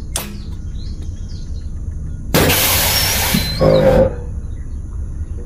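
Scania P410 ABS solenoid valve being test-activated: a sharp click at the start, then about two seconds in a loud hiss of compressed air venting for under two seconds as the brake chamber moves. A steady low rumble runs underneath.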